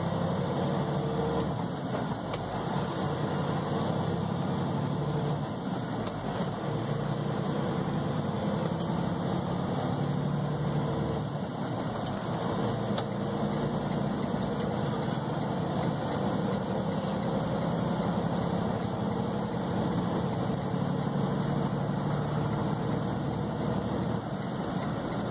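Semi-truck's diesel engine running steadily with road noise, heard from inside the cab while driving.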